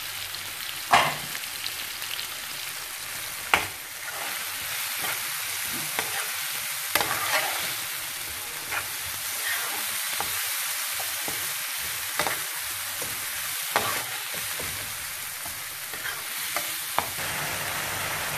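Masala of onions, tomatoes and green chillies sizzling in an oiled frying pan while it is stirred with a metal spoon. The spoon scrapes and taps sharply against the pan about half a dozen times.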